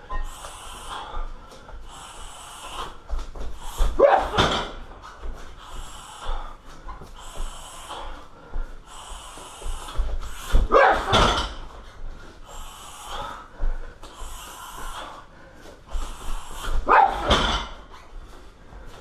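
Repeated strikes thudding into a car tyre on a stand, about one a second, each with a sharp hiss. Three louder bursts come about 4, 11 and 17 seconds in.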